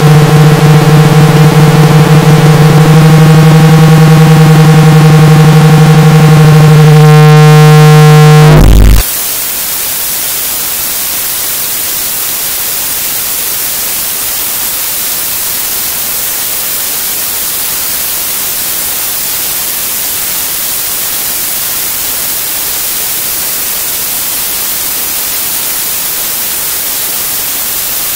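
Experimental electronic noise music: a loud, steady synthesizer-like drone with many overtones over a bed of hiss cuts off abruptly about nine seconds in, leaving a steady wash of white-noise static.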